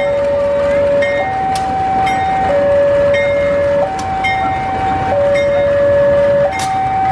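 Railway level-crossing warning alarm sounding a steady two-tone signal, switching between a lower and a higher tone about every 1.3 seconds, over the rumble of a train, with a few sharp clicks.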